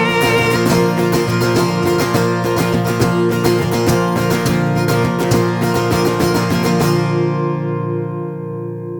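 Acoustic guitar strumming the final bars of a worship song, stopping about seven seconds in and leaving a held chord that rings on and fades.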